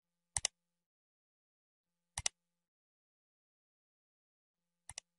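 Three mouse-click sound effects, each a quick double click, about two seconds apart, with dead silence between them.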